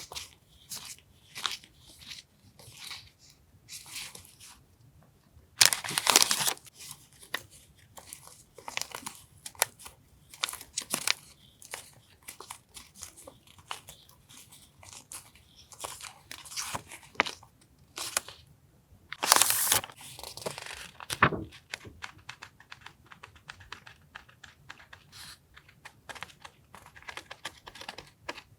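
Paper stationery and its packaging being handled, rustling and crinkling in many short strokes, with the odd tear. Louder stretches of rustling come about six seconds in and again about nineteen seconds in.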